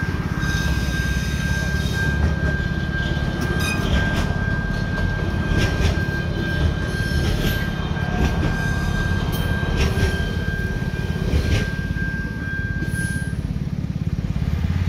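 A train passes over a level crossing: a low rumble, with the wheels clicking over the rail joints. The crossing's AŽD 71 warning signal sounds a steady high tone that stops near the end.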